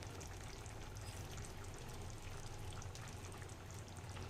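Faint, steady bubbling of water boiling in a cooking pot.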